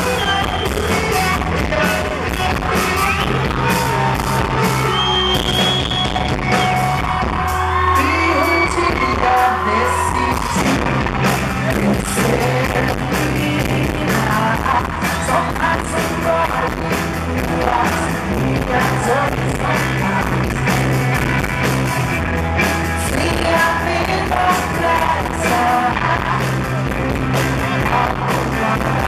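Live rock band performing: a woman singing lead over electric guitars and a steady drum beat, loud and continuous, heard from the crowd.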